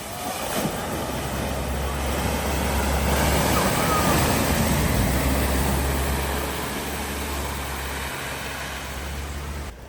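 A motor vehicle passing close, its engine hum and a rushing noise swelling to a peak midway and easing off, then cutting off suddenly near the end.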